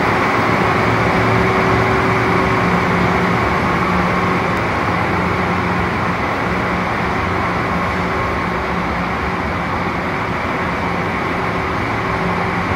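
Steady mechanical hum of a train at a station platform, several low droning tones over an even rumble.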